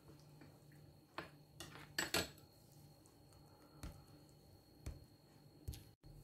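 Metal spoon stirring cornstarch and cold water into a paste in a small glass bowl, clinking lightly against the glass about seven times at uneven intervals.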